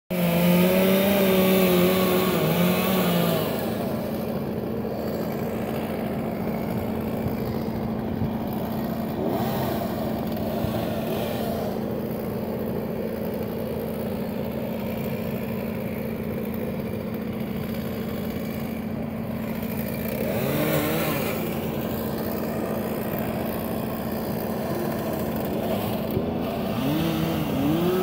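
An engine running steadily at one pitch, its note wavering in the first few seconds and rising and falling briefly twice near the end.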